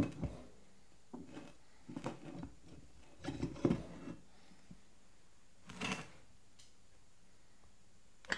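Metal lathe pulleys and a steel shaft being handled and slid together on a wooden workbench: a few separate knocks, clinks and scrapes, loudest at the very start and around three and a half seconds in.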